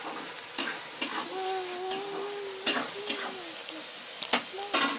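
A clear plastic ruler and paper being handled on a drawing surface: several sharp clicks and taps with a scratchy rustle between them. A faint wavering tone runs in the background through the middle.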